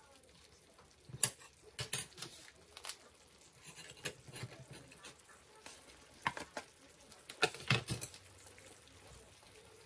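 Irregular light knocks and pattering clatter as strips of fried fish cake are tipped from a tray into a frying pan of simmering bamboo shoots, with the loudest knocks about a second in and again near the end.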